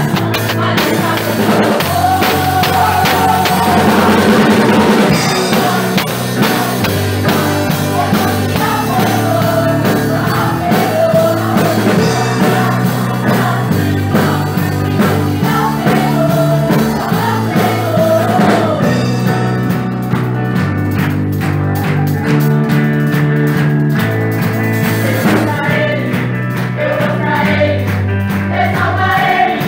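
Worship music from a band with electric guitar, bass guitar and drums, with voices singing the melody.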